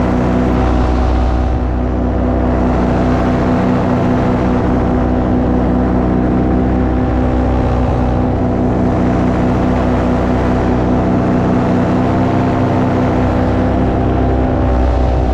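Paramotor engine and propeller running at a steady throttle in flight, an even engine note that holds its pitch.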